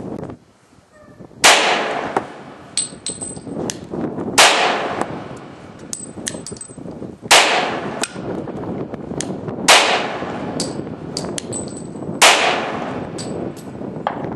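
Five pistol shots from a Glock 24 long-slide in .40 S&W with its standard uncompensated barrel, fired slowly about two and a half to three seconds apart, each with a short ringing tail. Lighter clicks and brief metallic pings come between the shots.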